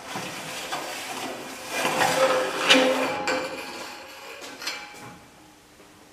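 Aluminium tail boom tube being slid off a homebuilt helicopter's tail rotor drive shaft: metal scraping and rattling that builds to a ringing metallic clank about two and a half seconds in, then dies down to a few small knocks.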